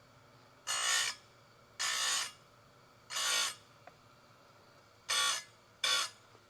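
Oregon 410-120 bench chain grinder's wheel grinding the cutters of an old saw chain in five short passes, each about half a second long, the last two close together. These are practice passes while the grinder is being set up.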